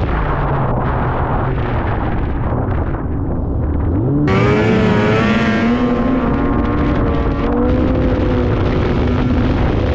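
Two-stroke snowmobile engine running under throttle. The revs drop off at first, then climb sharply about four seconds in and hold high and steady.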